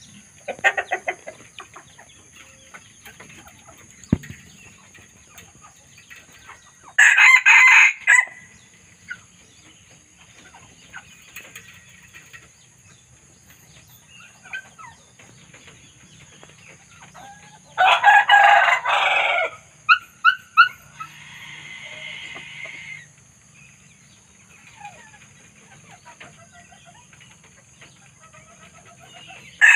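Young red junglefowl rooster crowing twice, each crow short, about a second and a half, the first some seven seconds in and the second past the middle, with quieter clucks and calls in between.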